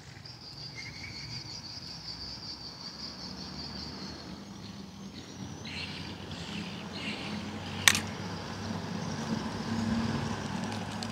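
Outdoor background noise: a low steady hum with a faint high tone and scattered faint chirps, and a single sharp click about eight seconds in.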